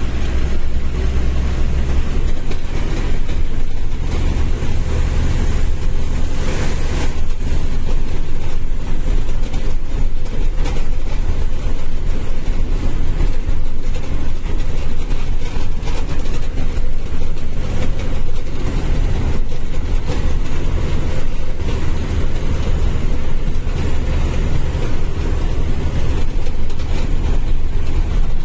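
A truck's diesel engine and tyres running steadily on a wet road, heard as a heavy low drone inside the cab, with a brief hiss about six and a half seconds in.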